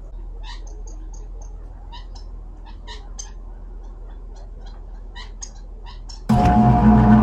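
Small birds chirping: many short, high chirps and brief whistled notes, scattered irregularly. About six seconds in, a much louder noisy rush with a steady low hum cuts in suddenly.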